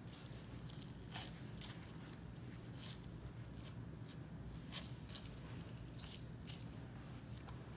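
Boning knife slicing through the fat and membrane of a Wagyu beef outer plate, with short crisp crackling strokes, irregular and spaced a second or so apart, as the fat layer is peeled away. A steady low hum runs underneath.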